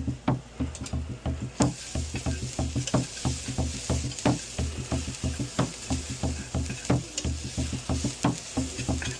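A steady hand-drum beat, about two to three strokes a second, over the light sizzle of seasoning frying in a pan.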